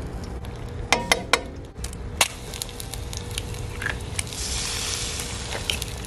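Two eggs frying on a hot-plate pan, giving a steady sizzle, with a quick run of three sharp clicks about a second in and one more a second later.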